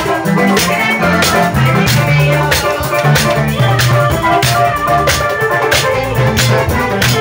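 Loud dance music from a live band with a drum kit, played through a PA speaker: a steady drum beat over a moving bass line.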